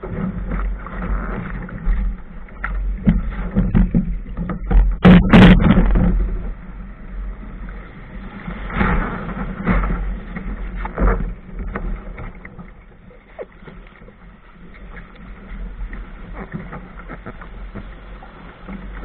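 Wind buffeting the deck-mounted camera's microphone over surf and splashing water as a sailor wades beside a Laser dinghy through shallow breaking waves, hands on the hull. The loudest burst of splashing and knocking comes about five seconds in.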